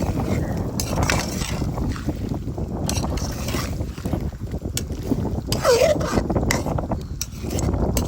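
Wind buffeting the microphone in a heavy, uneven low rumble, with scattered small clicks and a brief wavering squeak about six seconds in.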